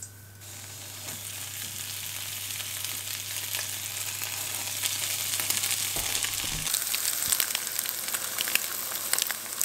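Floured brown trout fillets frying skin-side down in hot clarified butter in a nonstick pan: a dense crackling sizzle that starts about half a second in and grows louder. A dull knock about six seconds in.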